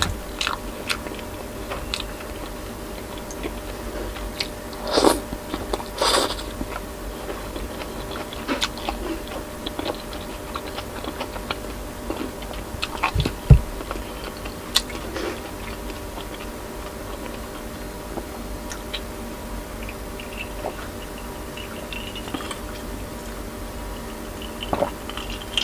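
Close-miked eating with the fingers: chewing and wet mouth sounds of rice and pork belly, with scattered small clicks and a dull knock on the wooden board. Near the end, sips of iced cola from a glass. A faint steady hum sits underneath.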